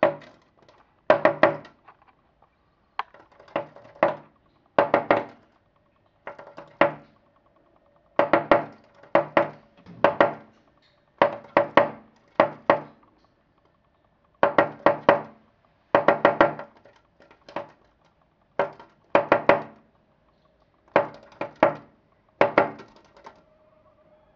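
A chickadee fluttering against a window pane, its beak and wings striking the glass in quick flurries of taps and thumps. A flurry of several hits comes about every second, with short pauses between.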